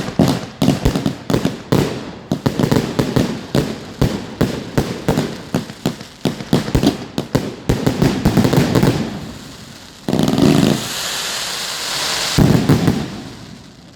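245-shot firework cake firing: a rapid string of sharp bangs, several a second. About ten seconds in, the bangs give way to a dense crackling hiss for a couple of seconds, then a few more bangs.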